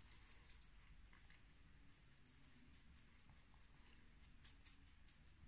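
Near silence with faint soft clicks and pats of a makeup sponge being dabbed on the face to blend cream contour, a little louder about four and a half seconds in.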